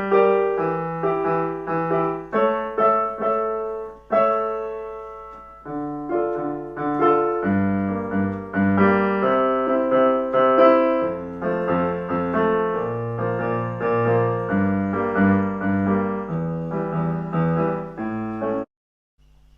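Solo piano music, chords over a moving bass line with each note struck and fading, which cuts off suddenly near the end.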